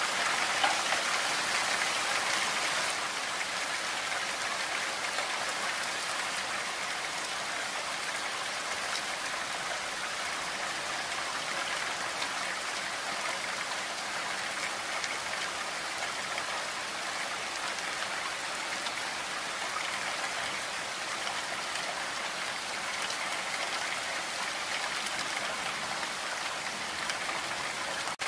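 Heavy rain falling steadily, a dense even hiss of drops, a little quieter from about three seconds in.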